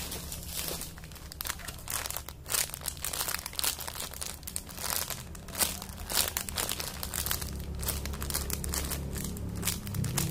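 Plastic crinkling and crackling irregularly as a squishy toy is handled close to the microphone, over a steady low hum.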